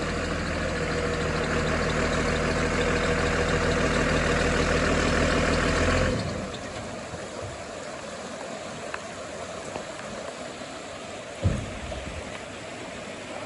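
Pickup truck engine running steadily, then cutting off abruptly about six seconds in. Steady rushing floodwater remains, with a single low thump near the end.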